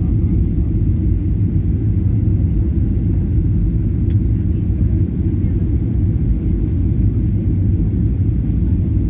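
Steady low rumble inside the cabin of a Boeing 737-800 airliner on landing approach with its flaps extended: engine and airflow noise, even throughout.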